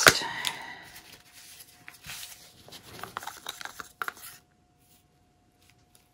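Faint clicks and rubbing of paint containers being handled while acrylic paint is poured. The sound cuts out abruptly about four seconds in.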